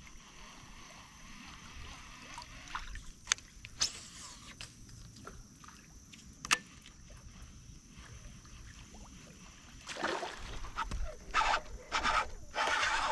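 Water and kayak sounds while a hooked bass is played on a taut line: quiet at first with a few sharp clicks, then loud, irregular splashing and knocking in the last three seconds.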